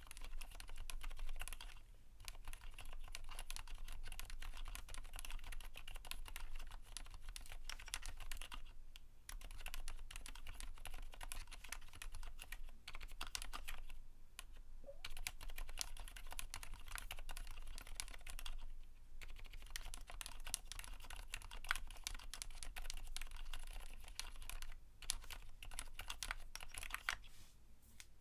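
Typing on a Keychron Q1 mechanical keyboard with lubed Cherry MX Silent Black switches, PE foam and PBT dye-sub keycaps: a dense run of damped key presses. It is broken by brief pauses every few seconds and tapers off near the end.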